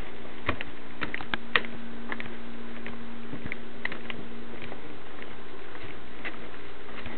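Footsteps on a wooden boardwalk: light, irregular taps and clicks about every half second, over a steady low hum.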